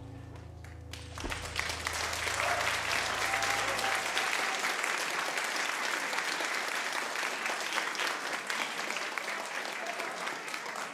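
Audience applauding, the clapping starting about a second in, as the last held notes of the music fade away.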